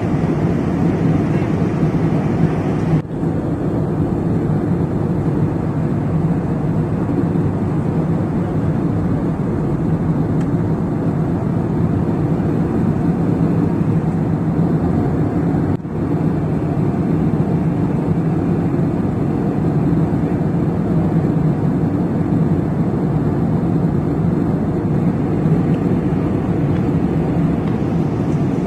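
Steady drone of a jet airliner in flight, heard from inside the passenger cabin, low and even, with two very brief dropouts, about three seconds in and about sixteen seconds in.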